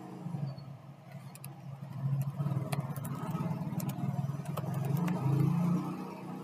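Computer keyboard typing: a few scattered key clicks over a steady low hum.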